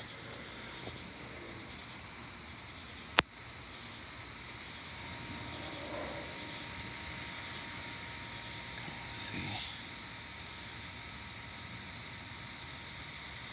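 Night insects chirping in a steady, fast, even pulse, about six or seven pulses a second, with a fainter, higher insect buzz joining for a few seconds partway through. A single sharp click about three seconds in.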